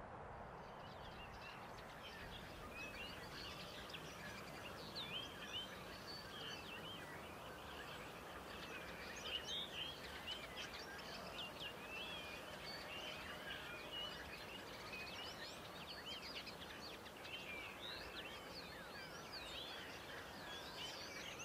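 Many small birds chirping and twittering with short rising and falling calls, faint, over a steady low background noise; the chirping sets in about a second in.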